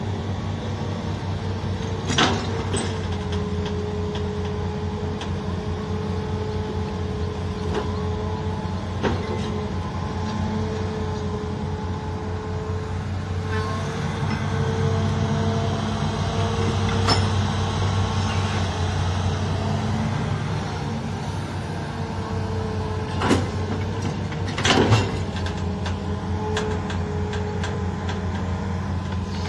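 Hitachi crawler excavator's diesel engine running steadily with a hydraulic whine as it digs into hard ground. The engine note rises for several seconds about halfway through, and a few sharp clanks of the steel bucket break through, two of them close together near the end.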